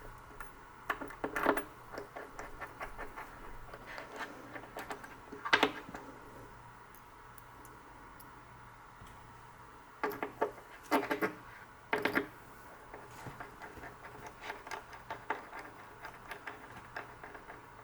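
Small screws being driven by hand with a screwdriver into the centre rail of an aluminium switch opener: irregular light metal clicks, ticks and scrapes, with louder clusters of knocks near the start, about six seconds in, and between ten and twelve seconds.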